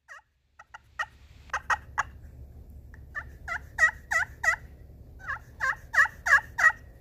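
Turkey pot call with a wet slate surface, played with a solid-acrylic striker topped with snakewood. A few soft notes come first, then three runs of four or five yelps, each note breaking down in pitch. The call still sounds cleanly though the slate is wet.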